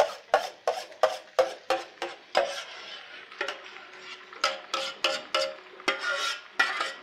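A spoon scraping and knocking against metal cookware in quick repeated strokes, about three a second, as noodles are stirred in a frying pan and thick béchamel sauce is scraped from a saucepan onto them. In the middle the strokes give way for a couple of seconds to a softer, continuous scraping.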